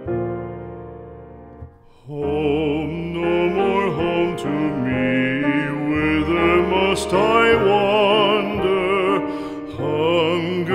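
Music: a piano chord fading out, then from about two seconds in a singing voice with strong vibrato over piano accompaniment.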